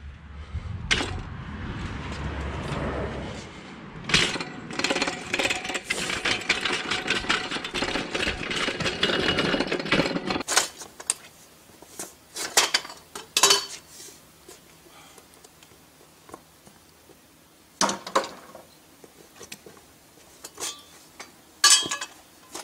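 A bandsaw mill's small engine running with a dense, loud clatter that cuts off suddenly about ten seconds in. After that, a few scattered sharp metal clanks and knocks from the mill's steel rail frame being handled.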